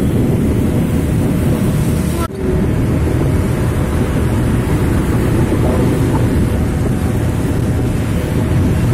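Steady road and engine noise of a moving vehicle, with wind rumbling on the microphone. It drops off briefly about two seconds in.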